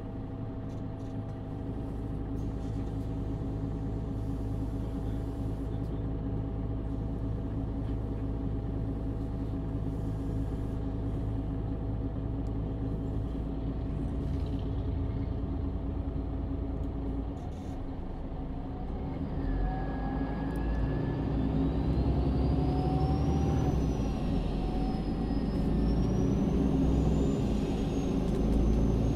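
MAN Lion's City city bus heard from inside during a ride. For the first half or so the engine runs at a steady note. About two-thirds of the way in it gets louder, with a whine that rises and falls as the bus speeds up.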